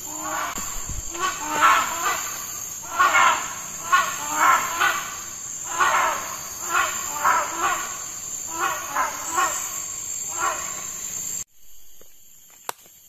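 Tropical forest ambience: a steady high insect drone with a run of short repeated animal calls, about one or two a second. Both cut off suddenly about eleven seconds in, leaving a few faint clicks.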